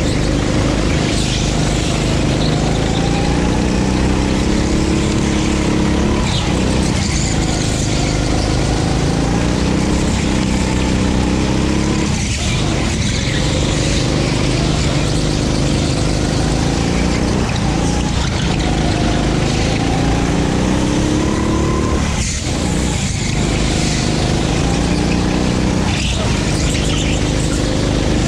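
A 9 hp go-kart engine running hard on track. Its pitch climbs steadily, then drops sharply about five times as the throttle comes off for corners, and climbs again.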